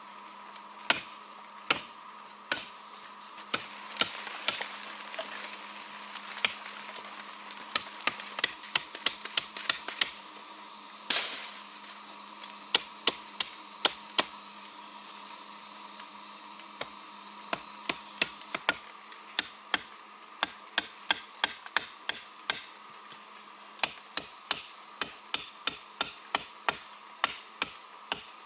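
A hand tool striking wood again and again, sharp separate chops or knocks in an irregular rhythm of about one to three a second, with one longer, rougher hit about eleven seconds in. A steady hum runs underneath.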